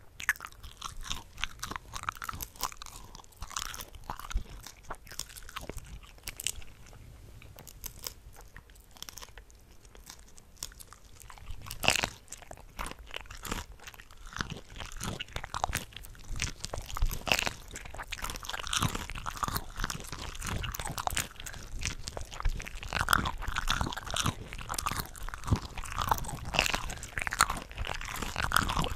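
Close-miked eating of cooked shrimp from a shrimp cocktail platter: bites and chewing with many small sharp clicks and wet mouth sounds, several eating tracks layered over one another. The sound is sparser for a few seconds in the middle, then grows busier and louder from about halfway through.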